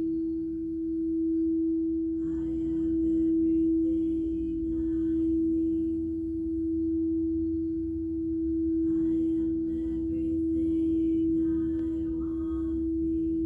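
Singing bowl sounding one steady low tone that swells and fades slowly every two to three seconds, with fainter higher ringing tones coming and going over it.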